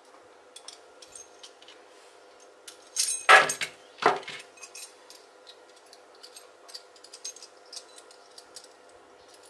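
Small metal bag-handle fittings and screws clinking and clicking as they are taken apart and handled, with two louder knocks about three and four seconds in.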